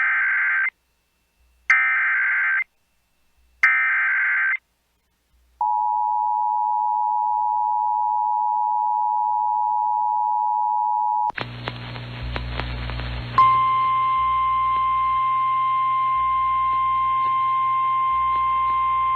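Emergency Alert System SAME header: three short bursts of warbling digital data, then the steady two-tone EAS attention signal for about six seconds, announcing a new warning. It cuts to a noisy weather-radio recording with a low hum, where a single steady NOAA Weather Radio alarm tone starts about two seconds later and holds.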